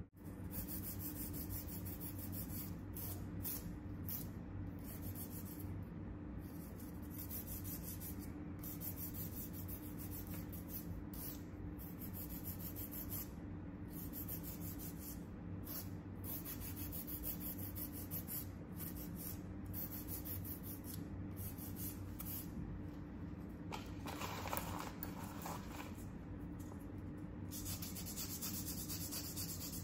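A nail file rasping across fingernails in repeated back-and-forth strokes with short pauses, over a steady low hum.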